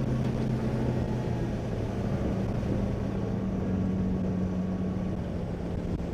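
Fishing boat's outboard motor running steadily under way, a constant low drone over a wash of wind and water noise.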